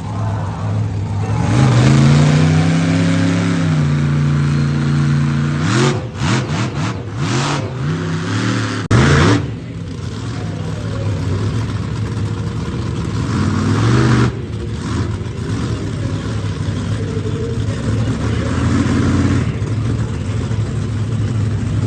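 Monster truck engine revving hard, rising and falling in pitch, with a run of quick throttle blips and a short loud burst midway, then another rev before settling to a steadier run.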